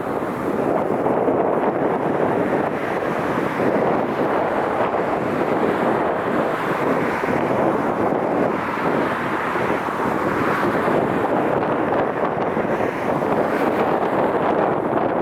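Strong wind buffeting the microphone, a steady rumbling rush with no clear breaks.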